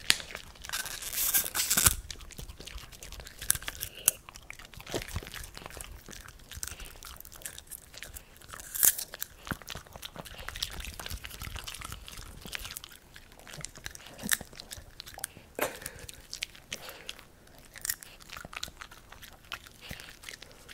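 Dogs crunching and chewing popcorn close to the microphone: irregular crisp crunches, with a dense run of loud crunching about a second in.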